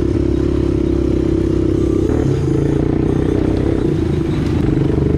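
ATV (quad bike) engine running steadily, its pitch shifting about two seconds in.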